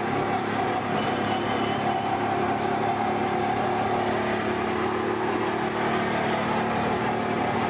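Steady motor-vehicle engine noise, a continuous drone with no breaks.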